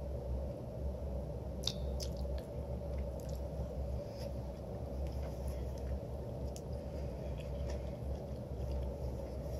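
A person chewing a bite of cooked squash close to the microphone, with small wet clicks and squishes from the mouth, over a steady low hum.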